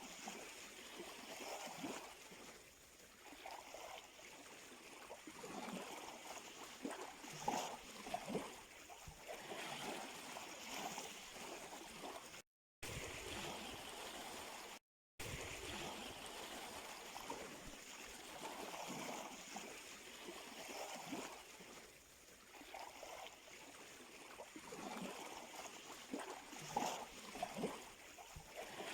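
Faint sea surf: small waves washing and splashing at the shore in an irregular, steady wash of water. The sound cuts out completely twice for a moment about halfway through.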